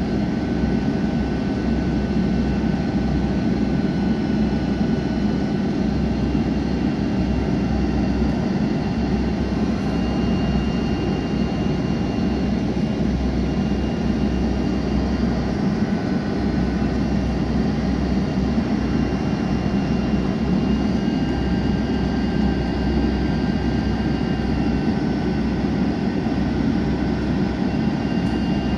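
Cabin noise inside a Boeing 767-300 on its landing approach: a steady roar of jet engines and airflow, with faint high tones that shift slightly in pitch now and then.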